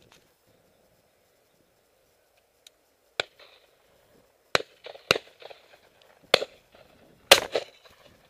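Shotguns firing: about six sharp shots spread over the last five seconds, each with a short echo, the loudest a quick pair near the end.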